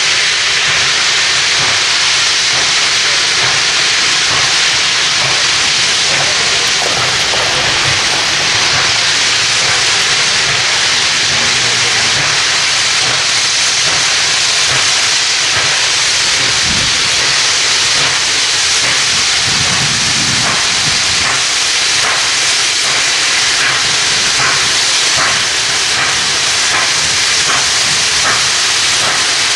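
Nickel Plate Road No. 765, a 2-8-4 Berkshire steam locomotive, working hard at slow speed: a loud, steady hiss of steam with slow, even exhaust chuffs that come through in the second half.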